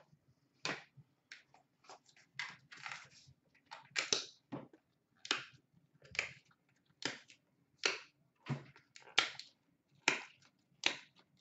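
Trading cards being flipped one by one through a pack, each card giving a short, crisp swish or snap, about two a second at an uneven pace.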